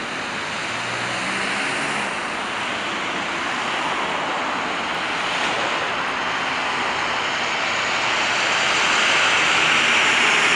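Dense multi-lane road traffic: a steady wash of tyre and engine noise, swelling about eight seconds in as a vehicle passes close.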